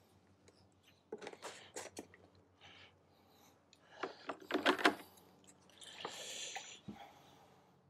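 Plastic jug and measuring cup being handled: scattered clicks and knocks of hard plastic, loudest about halfway through, then about a second of liquid fertilizer pouring from the tilted jug, ending in a low thump as something is set down.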